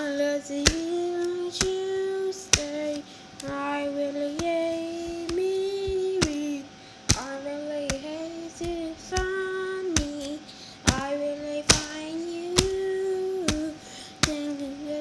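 A high voice singing a wordless melody in long held notes, stepping between a few pitches, with a sharp click about once a second keeping time. A faint steady tone sits underneath.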